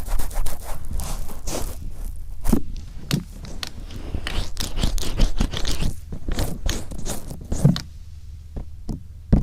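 Wet, oiled cotton swab rubbed over the outer ear of a binaural microphone: a run of short scraping strokes that die away about eight seconds in, then a single bump near the end.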